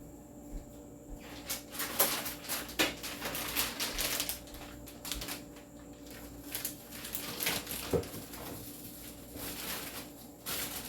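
Food packages rustling and crinkling, with irregular clicks and knocks of items being moved and set down on refrigerator shelves. It starts about a second and a half in, with the sharpest knocks around two seconds and eight seconds in.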